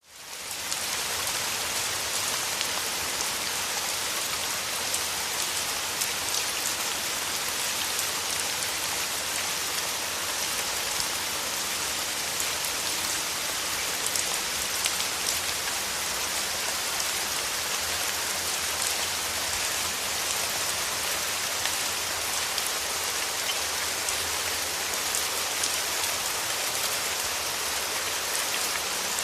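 Steady rainfall, a dense even hiss of many drops hitting surfaces, fading in at the very start.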